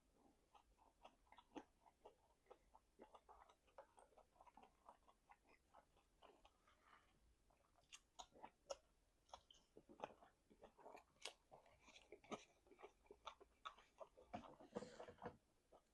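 A person chewing meat: faint, irregular mouth clicks and smacks, with a denser run of smacking near the end.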